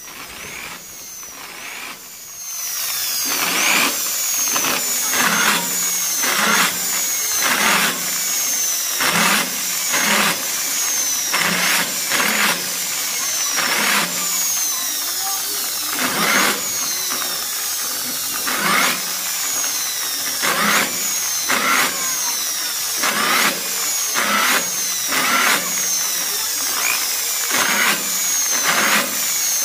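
Electric drill with a large bit deburring the vent holes of a steel amplifier-case panel one after another, so the hole edges come out smooth rather than rough. About a couple of seconds in it starts a run of short grinding bites, about one a second, each with the drill's whine dipping in pitch as it bites.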